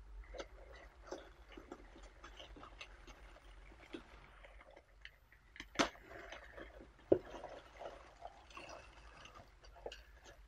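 Printed wrapping paper inside a cardboard box being rustled and folded back by hand, with scattered crinkles and light taps and two sharper, louder crackles about six and seven seconds in.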